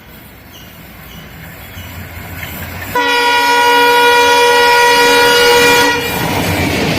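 WDP4D diesel locomotive approaching with its engine hum building, then sounding one long, steady horn blast from about three seconds in, lasting about three seconds. As the horn stops, a loud rushing noise of the train passing close.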